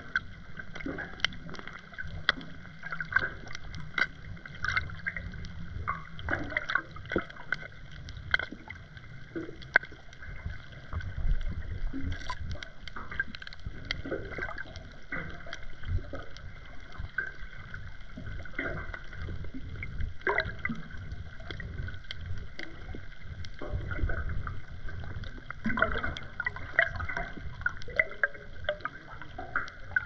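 Underwater sound picked up by a submerged action camera: a low, muffled surge of moving water with frequent irregular clicks and taps.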